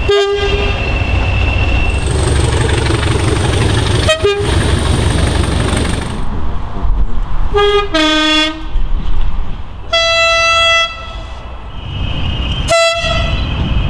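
A string of train horn blasts from diesel locomotives, cut together from several clips: short toots near the start and around four seconds in, a two-tone blast around eight seconds, one note held for about a second around ten seconds, and another short toot near the end. Under them runs the low rumble of diesel engines and passing trains, with a high steady whine for a few seconds early on.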